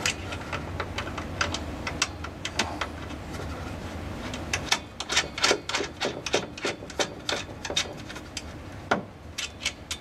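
Irregular metallic clicks and clinks as a nut is fitted by hand onto a bolt holding the pedal bracket, the clicks coming thick and fast in the second half, over a low steady hum.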